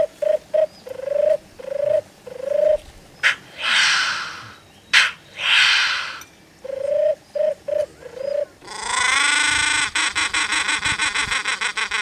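Imitation of a displaying black grouse on a hand-held game call: a run of short rising bubbling coos, two long hissing calls in the middle, then more coos. Near the end comes a longer, buzzy call that rattles rapidly.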